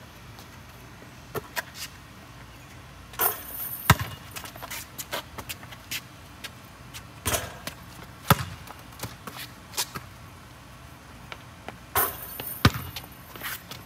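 Basketball shooting drill on an outdoor hoop: three times, about four seconds apart, the ball hits the rim with a rattly clang and then bounces with a thump on the concrete court, with lighter taps in between.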